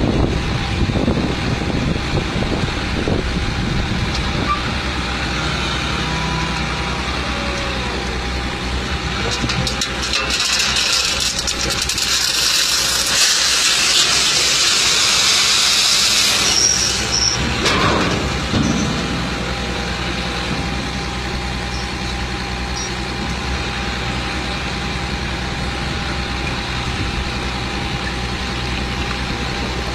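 Truck engine running steadily, with a loud hiss that starts about ten seconds in and lasts some six seconds, and a short knock a little after it.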